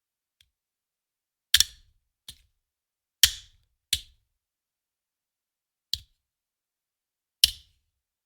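Handgun magazine thrown down again and again, each landing a single sharp clack that dies away quickly, with a few seconds of silence between throws. Three landings are loud and three lighter, one coming just after a loud one like a bounce.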